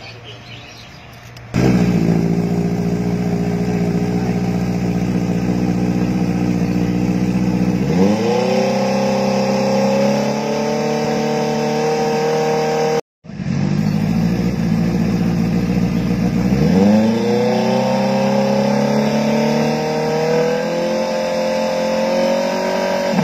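Inline-four sport motorcycle engine idling, then revved up about 8 s in and held at a steady higher rpm, dropping back and revved and held again from about 17 s. This is a stationary exhaust-noise test of a bike seized for being louder than the legal limit, with a sound-level microphone beside the exhaust.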